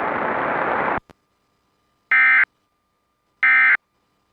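Radio hiss that cuts off with a click about a second in, then two short, buzzy bursts of Emergency Alert System data tones about 1.3 s apart: the end-of-message (EOM) code that closes the monthly test.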